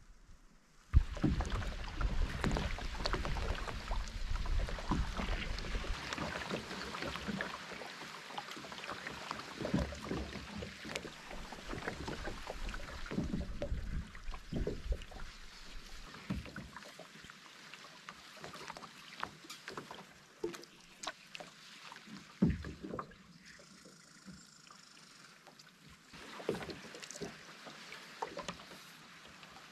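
Paddling a wooden strip canoe through lily pads: paddle strokes, splashing and dripping water, with sharp knocks, the loudest about a second in. The strokes come thick in the first half and thin out in the second.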